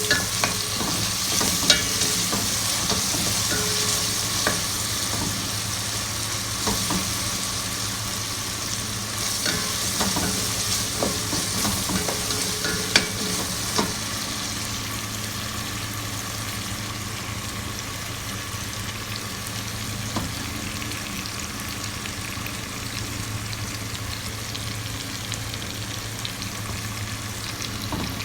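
Food frying in a pan, sizzling steadily, with a few sharp clicks, mostly in the first half, and a steady low hum underneath.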